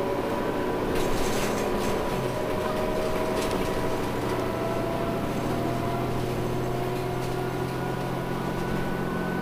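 Cabin sound of a New Flyer D60LFR articulated diesel bus: a steady engine and drivetrain hum, with whines that rise slowly in pitch.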